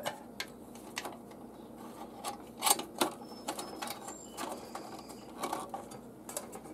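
Irregular small clicks and taps of a locknut being threaded and tightened onto a cord-grip fitting in a pool pump timer box, with a few louder clicks around the middle.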